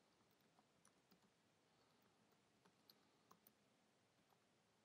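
Near silence with faint, irregular computer keyboard clicks as a command is typed.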